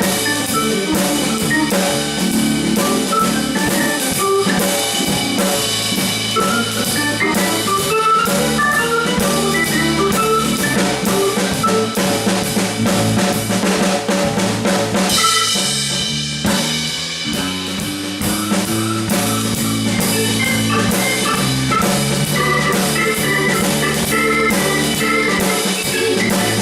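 Live instrumental jam of drum kit, bass guitar and keyboards, the drums keeping a steady beat under bass and keyboard lines, with a crash about halfway through.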